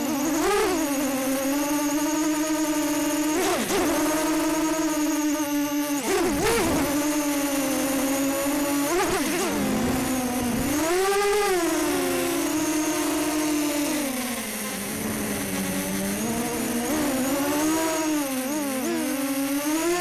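Storm SD250 quadcopter's brushless motors and propellers whining as it flies, heard from its own onboard camera; the pitch swoops up and down every few seconds with the throttle and sags lower for a couple of seconds past the middle.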